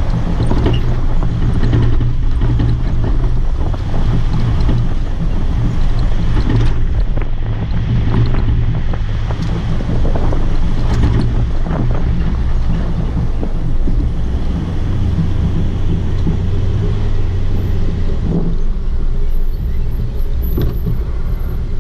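Jeep driving off-road on a sandy dirt track: a steady low engine drone with road and wind noise, and frequent knocks and rattles from the bumpy surface.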